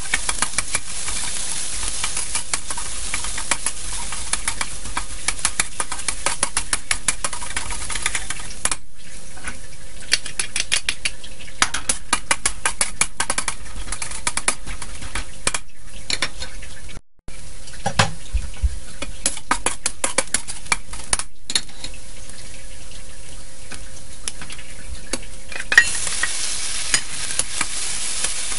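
Hot oil sizzling in a steel wok while a metal spatula scrapes and clicks against the pan, stir-frying minced ginger and scallions. The sizzle gets louder near the end as baby shrimp go into the wok.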